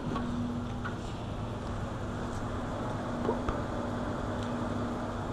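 A steady low hum with a rumbling background, broken by a few faint light clicks.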